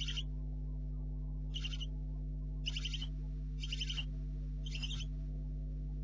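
Barn owl owlets' rasping, hissing begging calls: five short hisses about a second apart. A steady electrical hum runs underneath.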